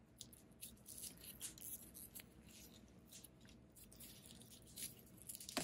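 Faint, irregular plastic crackling and clicking as small split wire loom is worked onto a taped wire by hand, with a slightly louder click near the end.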